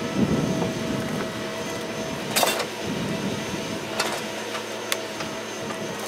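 Log loader's engine and hydraulics running steadily as its grapple lowers a bundle of logs onto a loaded logging truck. The logs knock once sharply about two and a half seconds in, with a couple of lighter clicks later.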